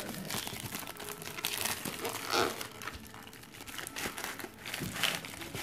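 Plastic bubble mailer crinkling and rustling as it is handled and opened by a gloved hand, with louder crinkles about two and a half seconds in and again near the end.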